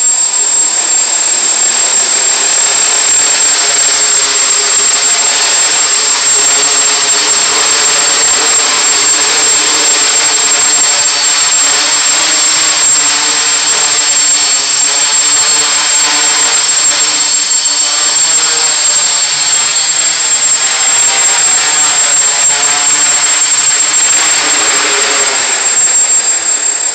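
Hexacopter's six 850Kv brushless motors and propellers running loud and steady, a dense rushing hum whose pitches keep wavering as the throttle shifts, over a thin steady high whine.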